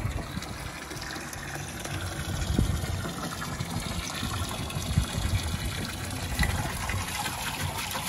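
Water from a garden hose pouring into a metal-lined chest freezer, the stream splashing steadily onto the shallow water pooling in its bottom as it fills.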